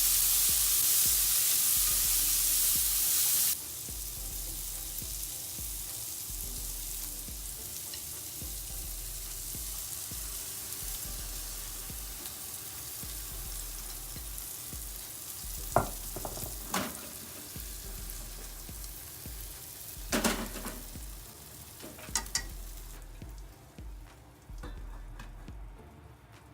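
Egg-based binbouyaki pancake batter sizzling as it fries in a pan. The loud sizzle drops off sharply about three and a half seconds in, and a softer sizzle goes on, broken by a few sharp knocks later on, then fades near the end.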